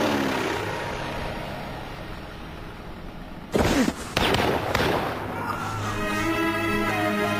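Film-style soundtrack: a dull, noisy sound fades away, then two sudden loud bangs about half a second apart, then music with long held notes comes in.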